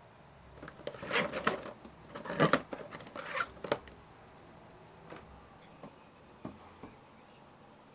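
Household items being handled: a flurry of rustling and clicking for about three seconds, then a few light, scattered taps.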